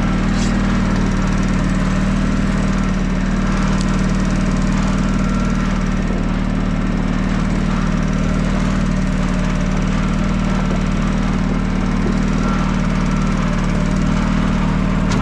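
Small engine running steadily at a constant speed, with an even low hum and no change in pace.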